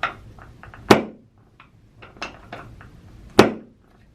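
Sharp knocks of a chiropractic speeder board giving way under the knee as adjusting thrusts are delivered: two loud knocks, about a second in and near the end, with lighter knocks between.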